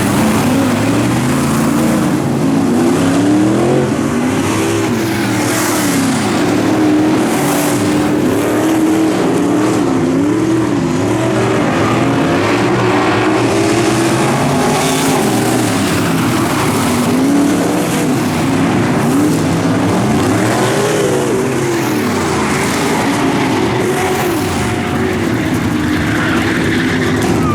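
Dirt track race car engines running hot laps. The engine pitch rises and falls over and over as the cars accelerate and lift off the throttle.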